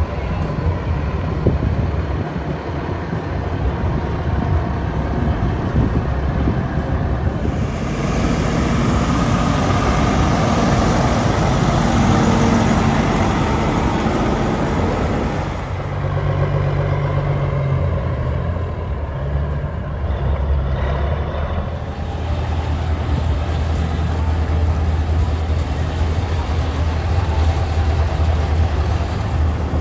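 Heavy diesel semi trucks running. A louder rush of engine and road noise swells in about a quarter of the way in and cuts off abruptly about halfway, then a steady low engine rumble, like a truck idling, carries on.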